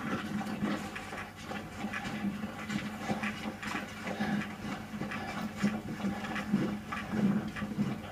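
Heavy panting breaths, repeated about every half second, mixed with rustling and knocks as the camera moves through long grass.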